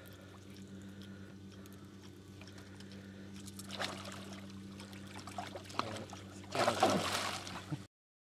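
Water splashing and swirling as a hooked peacock bass thrashes at the surface, loudest about six and a half to seven seconds in, over a steady low hum. The sound cuts off abruptly just before the end.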